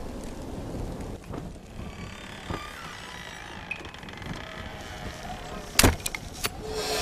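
Film sound effects: a low wind-like rush, then faint held tones, and one loud sharp thud about six seconds in followed by a few quick clicks.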